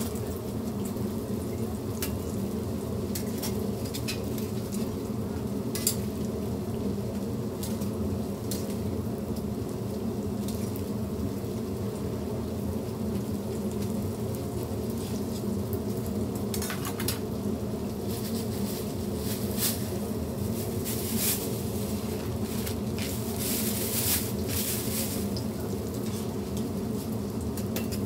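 Hotteok (Korean sweet filled pancakes) sizzling steadily as they fry in shallow oil on a flat griddle, over a steady low hum. Scattered sharp clicks and scrapes come from metal tongs pressing and turning the pancakes.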